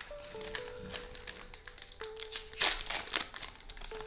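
Foil Pokémon card booster pack crinkling as it is handled and opened, with a louder crackle about two-thirds of the way in, over soft background music of a simple melody of held notes.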